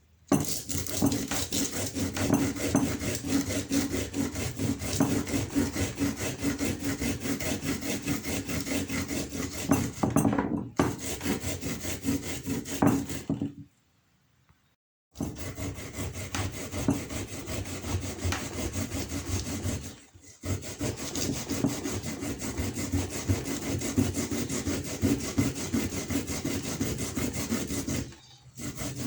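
Rapid, continuous rasping strokes of an ingredient being scraped down by hand, as when grating a root for an herbal remedy. The strokes stop for about a second and a half about halfway through, with two shorter breaks later.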